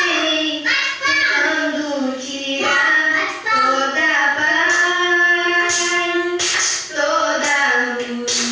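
A young girl singing solo into a handheld microphone, holding long, drawn-out notes.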